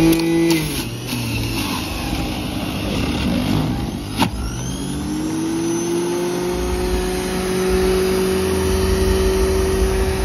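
Electric centrifugal juicer motor running as fruit is pushed through the chute. Its hum drops in pitch about half a second in, there is a sharp knock about four seconds in, then the pitch climbs slowly and steadily as the motor speeds up.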